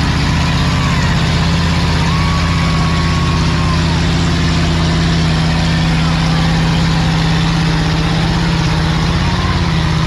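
Vehicle engine running steadily, a loud, constant low drone that holds its pitch.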